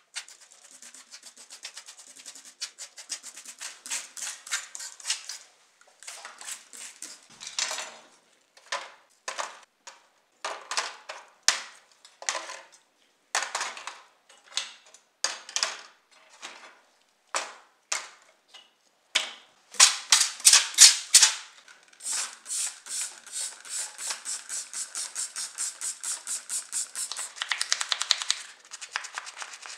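A stiff-bristled brush scrubbing foamy, paint-stripped diecast model car parts, with short scratchy strokes. They come separately and unevenly at first, the loudest about two-thirds of the way through, then turn into a quick steady run of strokes near the end.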